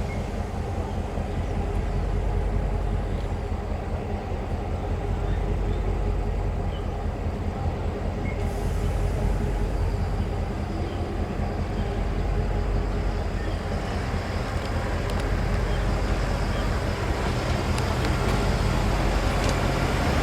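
Diesel engine of a railway track maintenance vehicle running steadily, a low even drone.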